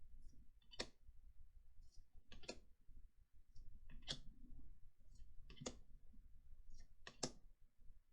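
Trading cards being flipped through one at a time, a faint, crisp card snap about every second and a half, five in all.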